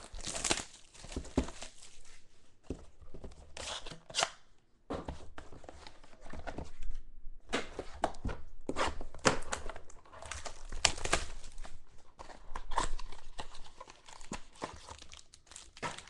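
Packaging of a sealed trading-card box being torn open and crumpled by hand: irregular rips and crinkles, with short pauses.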